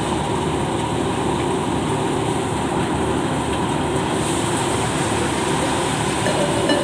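Tractor-driven paddy thresher running steadily: a dense, even mechanical noise of engine and threshing drum.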